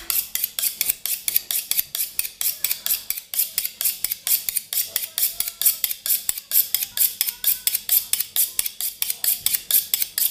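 Two kitchen knives sharpened against each other, one blade drawn along the other in quick metal-on-metal scraping strokes at about five a second. This hones edges that have become slightly dull.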